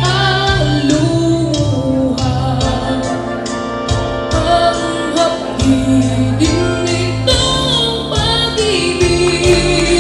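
A boy singing a song into a handheld microphone over backing music with a steady beat.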